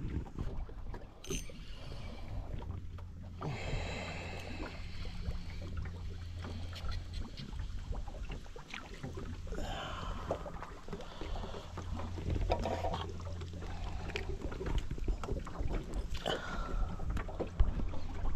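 Wind buffeting the microphone on an open boat, a low steady rumble, with scattered light clicks and rustles of hands handling fishing line and bait.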